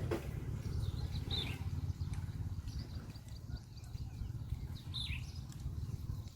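A bird calls twice outdoors, each call short and falling in pitch, over a steady low rumble of background noise.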